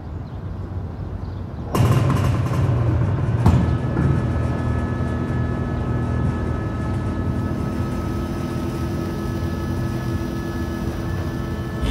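Cinematic intro sound design: a low rumble swells, a sudden hit comes about two seconds in and a sharper one about a second and a half later, then a steady low drone with held tones.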